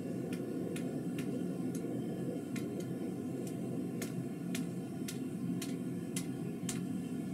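Gas forge running with a steady roar, while a hand hammer strikes red-hot steel bar on an anvil at about two blows a second, unevenly spaced.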